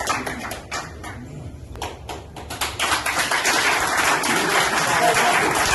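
A few scattered claps and taps, then a small roomful of people breaking into steady applause about three seconds in.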